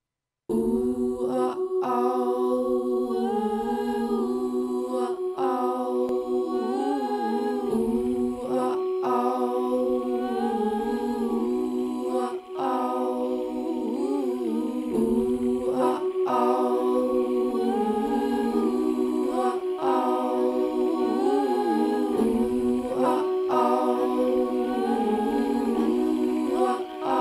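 Music of layered, wordless humming voices over a steady held drone. The sound starts about half a second in, and the harmonies shift slowly.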